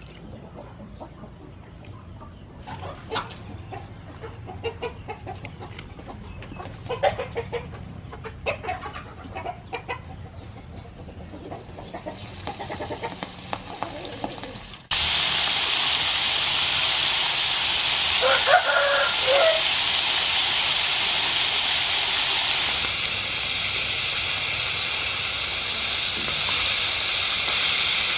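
Chickens clucking and a rooster crowing in the background. About halfway through, a loud, steady sizzle starts suddenly: squid pieces deep-frying in hot oil in a pan.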